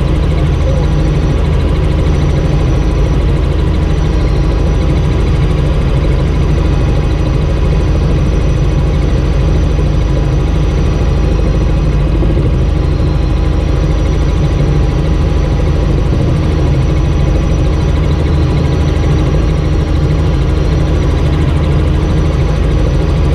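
Helicopter engine and rotor noise heard from inside the cabin in flight: a loud, steady drone that holds even throughout.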